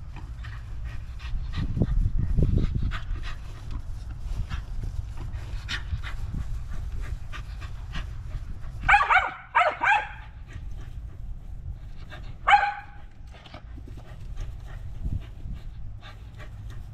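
A dog panting quickly, with three short sharp barks about nine, ten and twelve and a half seconds in. A low rumble swells about two seconds in.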